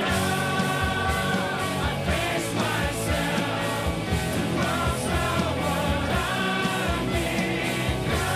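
Rock music with singing over a full band, with a steady drum beat throughout.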